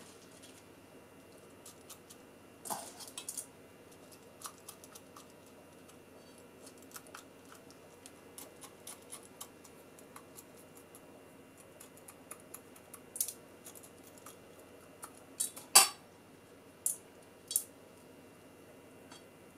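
Metal spoon clinking and scraping against a stainless-steel mixing bowl as it scoops wet rice, in scattered soft ticks, with a few sharper clinks and the loudest about three-quarters through.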